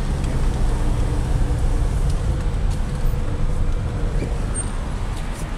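Car engine and road noise heard from inside the cabin as the car drives slowly: a steady low rumble that eases slightly toward the end as it slows.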